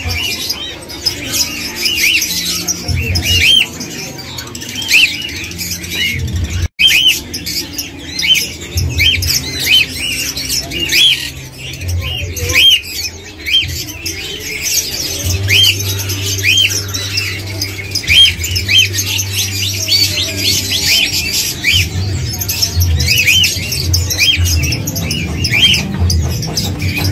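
Caged parakeets chirping and squawking: many short chirps that rise and fall, a few each second, over background music with a steady bass line.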